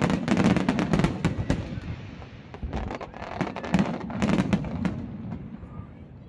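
Aerial fireworks bursting in rapid volleys of sharp bangs and crackles, thickest in the first second and a half and again from about three to four and a half seconds in, thinning out near the end.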